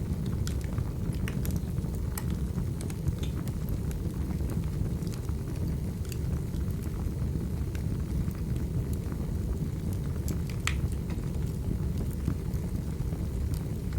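Wood fire burning in a fireplace: a steady low rumble with scattered small crackles and pops, one sharper pop about three quarters of the way through.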